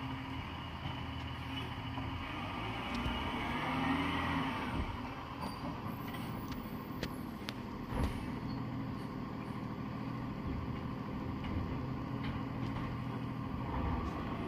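Garbage truck engine running steadily as the truck moves off, with a rising whine about three seconds in. A single sharp knock comes about eight seconds in.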